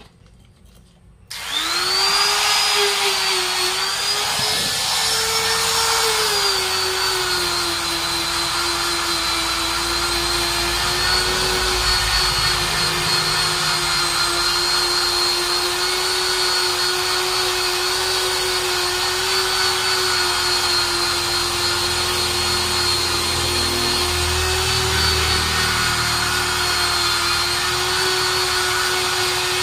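Handheld electric drill with a buffing attachment starting about a second in, winding up to speed, then running with a steady high whine as it roughens the rubber of a truck inner tube around the puncture, preparing it for a vulcanized patch. Its pitch settles a little lower after a few seconds and stays steady.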